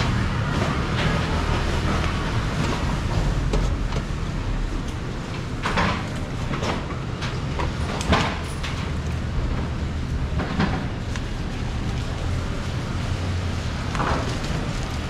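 Steady low background rumble, broken by a few sharp knocks of a knife against a plastic cutting board as fruit is cut.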